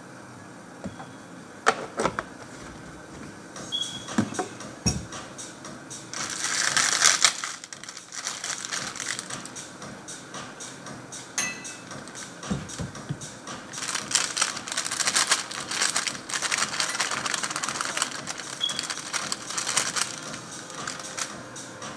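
Handling noises at a bar counter: a few knocks, then dense crinkling and rattling as popcorn is tipped from a plastic snack packet into a glass tumbler.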